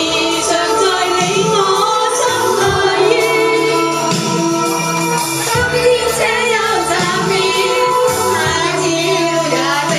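A group of women singing a song together, with a lead voice amplified through a handheld microphone.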